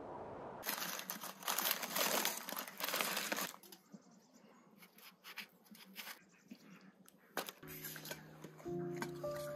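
Aluminium foil being crinkled and pulled off a baking pan: loud, dense crackling for about three seconds, then quieter scattered crackles. Music with held notes comes in near the end.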